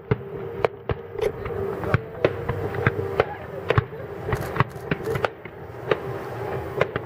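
Fireworks display: aerial shells bursting in an irregular string of sharp bangs, about two a second.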